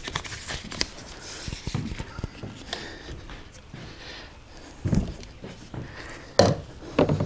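Plastic kayak hatch parts being handled and fitted against the hull: scattered light clicks and taps, a dull thump about five seconds in, and a few sharper knocks near the end.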